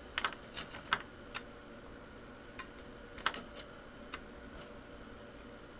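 Light, irregular clicks and taps of metal plates and rubber gaskets being handled and set down in a stack, about eight in all, bunched in the first second and a half, with the loudest a little over three seconds in.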